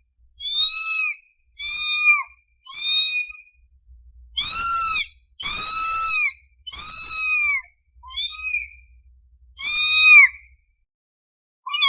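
Young kitten mewing loudly and repeatedly, eight high, plaintive mews each under a second long, rising and falling in pitch, loudest in the middle: a hungry kitten calling for its mother.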